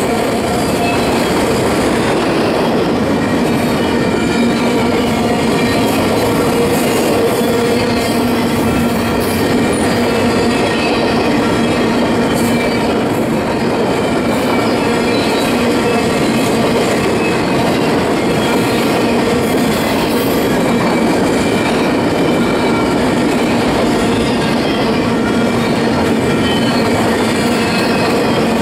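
Freight cars of a long intermodal train (autoracks and double-stack container well cars) rolling steadily past, steel wheels on rail making a continuous loud rumble with steady squealing tones from the wheels on top.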